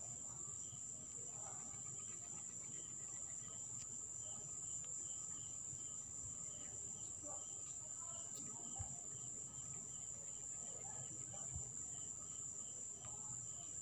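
Faint insect trilling, like crickets: a steady high-pitched whine with a softer chirp repeating at an even pace.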